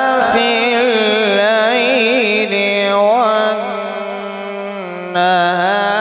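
A male qari reciting the Quran in the melodic tajweed style, drawing out one long sung phrase with a trembling, ornamented pitch; it grows louder again about five seconds in.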